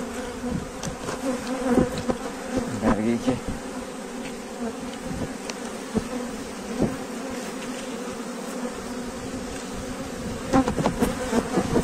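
Honeybees of a strong, opened colony of about 35 frames buzzing in a steady, even hum, with a few brief knocks mixed in.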